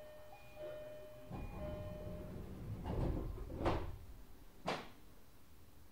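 JR East E131 series train's door-closing chime, a falling two-note chime repeating about once a second, then the sliding doors rumbling shut with three thuds over about two seconds, the middle one loudest.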